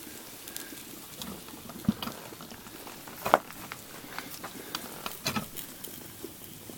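Breakfast cooking on a Kelly kettle: light, scattered crackling and sizzling, with a few sharper clicks.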